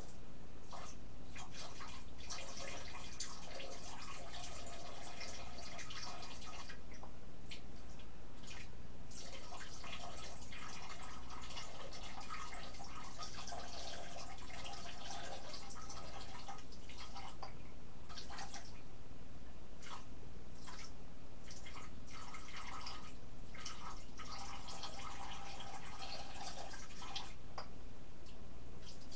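Water running and splashing at a bathroom sink in a stop-start pattern, over a steady low electrical hum.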